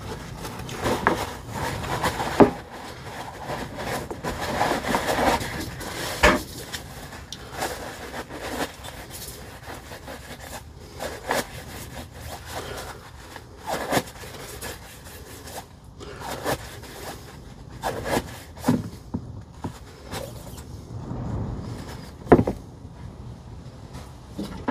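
Greasy metal parts of a DeWalt DCF899 impact wrench's hammer mechanism being handled and wiped clean on a workbench: rubbing and scraping, with a few sharp knocks as pieces are picked up and set down.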